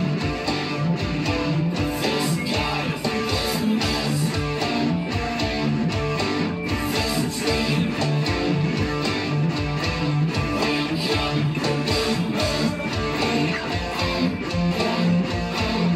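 PRS-style electric guitar playing a continuous rhythmic riff with a heavy low end.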